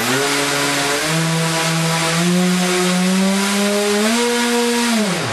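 Twin brushless outrunner electric motors (Hobby Lobby Atlas 5030/16) spinning 18x12 APC propellers in a static run-up, giving a loud, pitched whirring drone. The pitch steps up with the throttle over the first couple of seconds, holds high, and then falls steeply as the throttle is cut near the end.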